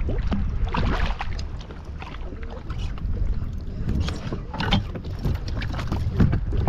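Water splashing and slapping around a sea kayak, with many short sharp splashes over a steady low wind rumble on the microphone.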